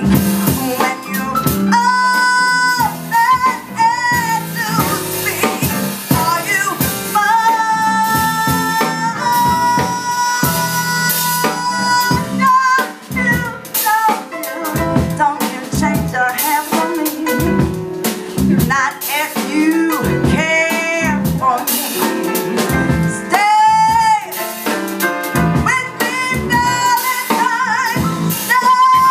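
A woman singing live into a microphone, holding long notes with a wavering high note near the end, backed by a band with piano and electric bass.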